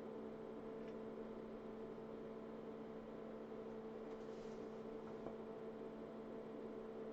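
Steady hum with a few even tones from the powered-on IBM PS/2 Model 85 computer, its power supply running.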